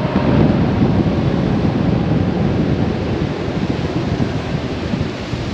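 Wind buffeting the microphone and water rushing in the wake of a boat running at speed on twin Suzuki outboards: a dense, mostly low-pitched noise that hides the engine note.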